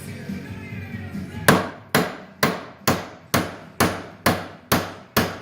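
Hammer striking a punch to drive out a stuck ball joint socket from a Jeep JK steering knuckle. The blows come in a steady run of about two a second, starting a second and a half in, each ringing briefly. Background music plays under the early part.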